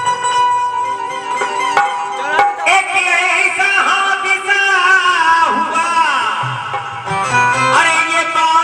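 Qawwali ghazal music: a man singing long, gliding melodic phrases without clear words, over keyboard and hand-drum accompaniment.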